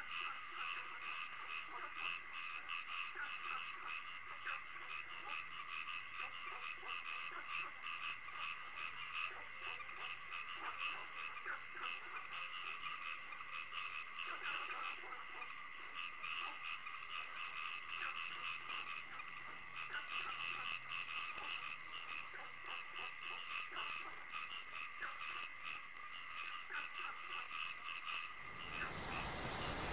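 Frog chorus at night: many rapid, overlapping croaks over a steady high trill. Near the end a loud, even hiss swells in.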